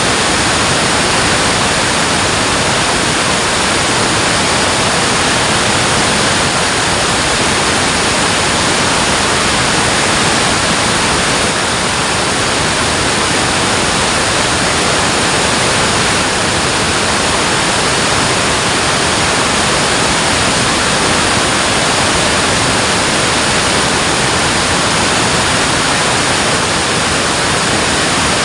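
Water rushing over a dam spillway: a loud, steady, unbroken roar.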